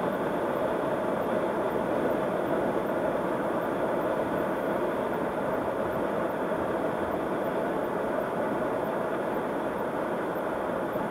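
Steady road noise of a car driving at highway speed on concrete pavement, heard from inside the cabin: an even rush of tyres and wind with an engine hum.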